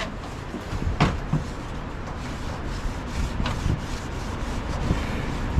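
Rubbing and scrubbing on a degreased lawnmower chassis, wiping the loosened grime off the metal, with a few sharp knocks.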